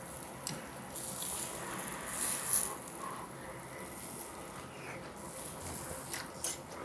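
A bite and chewing of grilled beef large intestine (daechang), with small clicks, over a steady low hiss from the charcoal grill.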